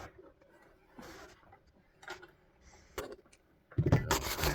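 Sharp plastic clicks and handling noise as parts and clips are pried out of a car headlight housing, with a louder clatter near the end.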